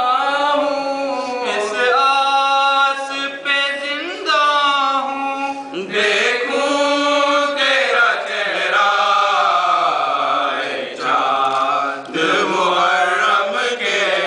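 Unaccompanied male voices chanting an Urdu noha, a Muharram lamentation, in a slow, sustained, melodic recitation.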